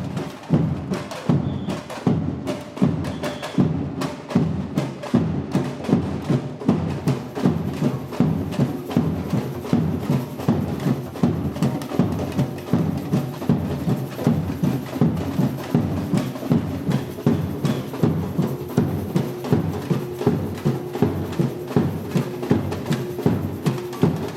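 Batucada samba percussion ensemble playing a steady, driving groove: deep drum beats with sharp, clicking high strikes layered over them.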